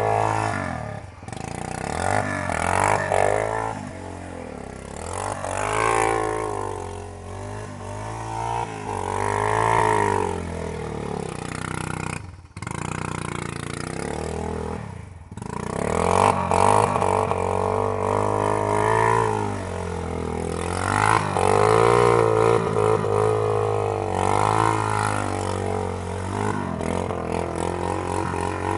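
1999 Yamaha Wolverine 350 ATV's single-cylinder four-stroke engine being ridden hard, its pitch rising and falling again and again as the throttle is worked on and off. Twice near the middle the sound drops away briefly.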